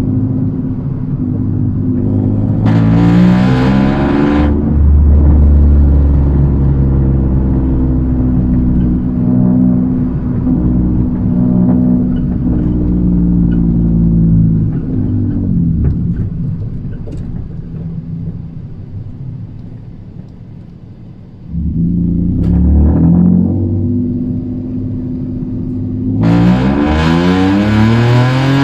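Toyota Aygo's 1-litre three-cylinder engine heard from inside the cabin on a drive: it pulls with a rising note a few seconds in, settles, then eases off to a quieter lull about two-thirds of the way through. It comes back suddenly and revs up again near the end.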